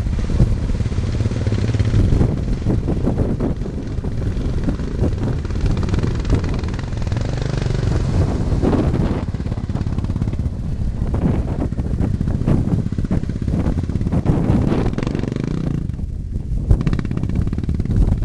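Sport quad (ATV) engines running and revving unevenly, rising and falling in pitch and level, easing off briefly near the end.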